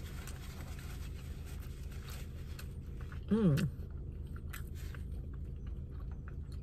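A person chewing a mouthful of sandwich with small wet mouth clicks, over a steady low hum. About halfway through comes a short hummed "mmm" whose pitch rises then falls.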